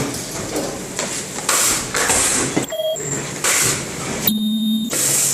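Ultrasonic plastic welding machine cycling: repeated short bursts of air hiss, about one a second, with a brief steady pitched tone a little over four seconds in.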